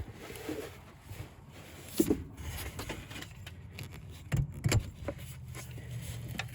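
Metal clunks and knocks from levering the belt tensioner with a breaker bar and working a serpentine belt onto the pulleys of a Ford F150's engine. The sharpest knocks come about two seconds in and twice around four and a half seconds in.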